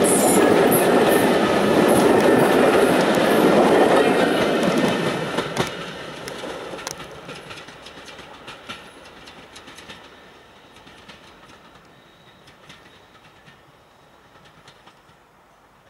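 Railway passenger coaches rolling past on the track, their wheels rumbling and clicking over the rail joints, loud for the first five seconds or so and then fading steadily as the train draws away.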